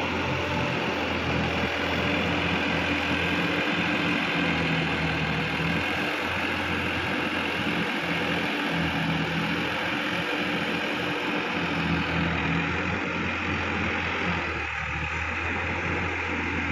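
Sonalika DI-50 RX tractor's diesel engine running steadily, with an even drone.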